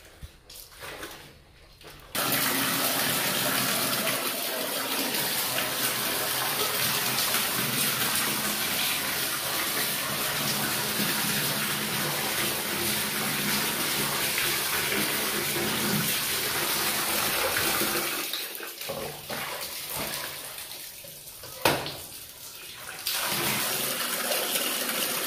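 Water running hard from a wall tap into a large metal basin, a steady rush that starts about two seconds in. It stops about 18 seconds in; after a sharp click the tap is turned back on and the water runs again near the end.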